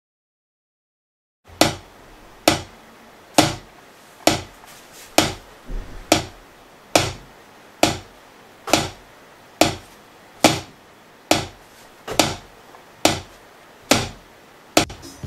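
Wooden drumstick tapping the pads of a homemade MIDI drum board in a steady beat, about one sharp click a second, with no drum sound coming from the instrument. It starts after about a second and a half of silence.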